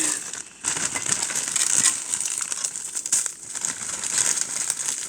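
Plastic snack packaging crinkling and crackling as it is handled, with brief pauses about half a second in and past the three-second mark.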